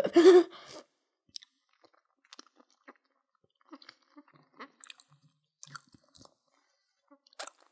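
A person chewing a big mouthful of gummy jelly baby sweet: faint, irregular wet smacks and clicks of the mouth working the tough gummy. A short hummed voice sound comes right at the start.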